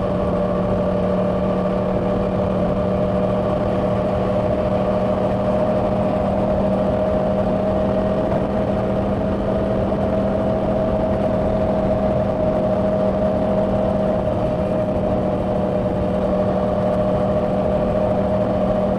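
2024 Yamaha R1's crossplane inline-four engine running through its stock exhaust at a steady cruise, its note holding a nearly constant pitch, with wind rushing over the microphone.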